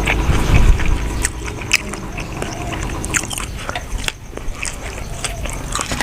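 Close-miked chewing of buffalo-meat larb, with many short, wet clicks and crunches from the mouth.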